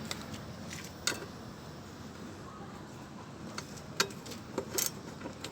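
Scattered sharp clicks and knocks of hand work on a van's rear door lock parts, about half a dozen, the loudest about four seconds in.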